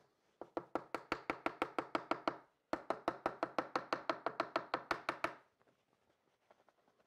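The fabric dust bag of a Bosch GEX 18V-125 random orbital sander being tapped rapidly, about six taps a second, to knock out the collected sanding dust. Two runs of tapping with a brief pause between, stopping about five seconds in.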